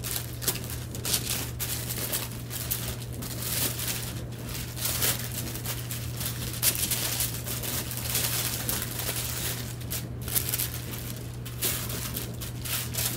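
Parchment paper crinkling and rustling in irregular crackles while bread dough is pressed and shaped into a round loaf on it by hand. A steady low hum runs underneath.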